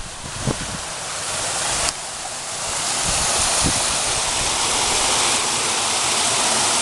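Rushing runoff water: a steady hiss that grows louder about three seconds in. The water is cutting away the sand foundation under the road's asphalt edge.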